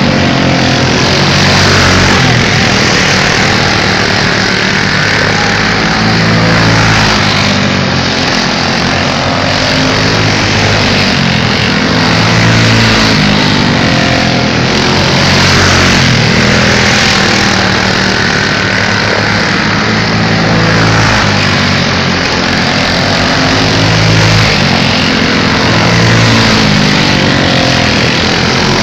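Race car engines running laps on a small oval track, loud and continuous, the engine note swelling and fading every couple of seconds as the cars come past and go away.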